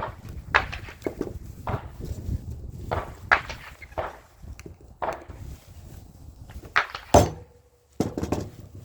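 Irregular knocks and clatter of scrap metal parts and tools being handled on a work surface, with the loudest knock a little after seven seconds in.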